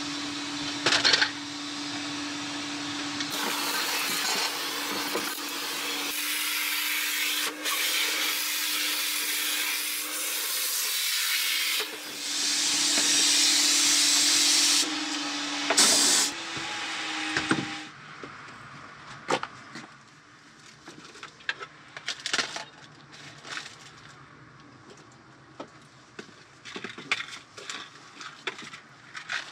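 Coin-operated car-wash vacuum running with a steady hum and a rushing hiss of suction, louder for a few seconds midway, then shutting off a little over halfway through. After that, light knocks and clatter of items being handled.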